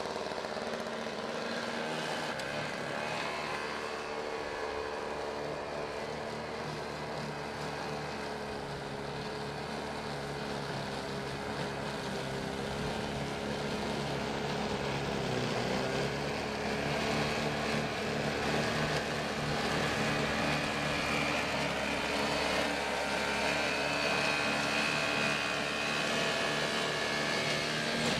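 Small single-stage snowblower engine running steadily while throwing snow, its pitch dipping briefly about halfway through as it takes a load, then growing a little louder.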